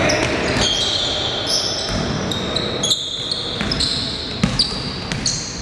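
Basketball being played on a hard court: sneakers squeaking in many short, high squeals, a few ball bounces, and a background hubbub of crowd voices.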